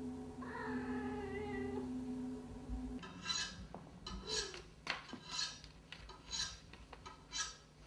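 A cat meows once, for about a second and a half. From about three seconds in, a knife being sharpened on a television soundtrack rasps in repeated short metallic strokes, roughly one a second.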